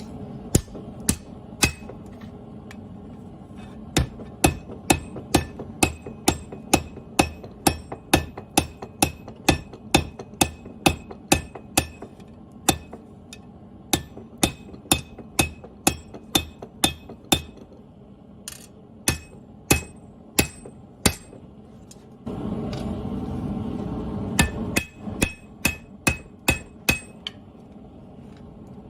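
Forging hammer striking hot steel on an anvil in a steady rhythm of about two blows a second, each blow ringing briefly, during the rough forging of a machete blade. The hammering pauses twice, and about two-thirds of the way through a steady rushing noise sounds for a couple of seconds.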